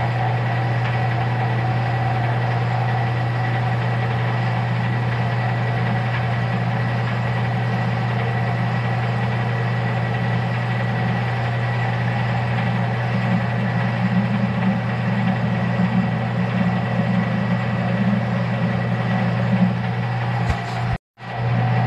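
Metal lathe running steadily, spinning round bar stock while a center drill in the tailstock is fed into its end. The sound grows rougher and less even from about halfway, and it cuts out for an instant near the end.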